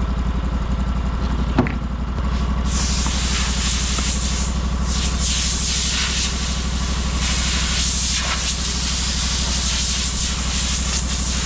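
Portable band sawmill's gas engine running steadily, its note picking up about two seconds in after a sharp click. A loud, steady hiss starts soon after and carries on to the end.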